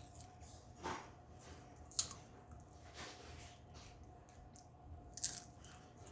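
Someone chewing crunchy food: a few separate crunches, with a quick cluster near the end.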